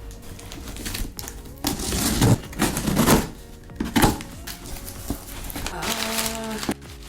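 Packaging from a large cardboard shipping box being handled and pulled open: a run of loud rustling and clattering noises about two to four seconds in, over soft background music.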